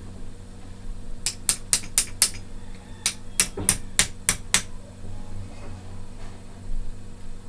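Sharp taps of a screwdriver handle striking an airgun's trigger mechanism during assembly. There are five quick taps about a second in, then six more after a short pause, each run at about three to four taps a second.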